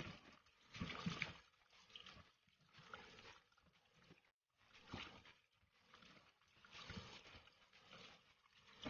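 Faint splashing and sloshing of tap water as hands rub raw salmon steaks in a plastic bowl, in irregular swells every second or two. The sound cuts out briefly about four seconds in.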